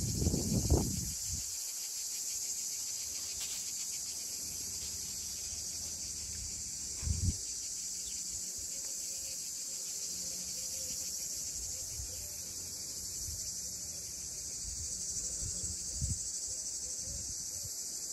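A chorus of cicadas keeps up a steady high-pitched hiss. A few low bumps on the microphone stand out briefly at the start and about seven seconds in.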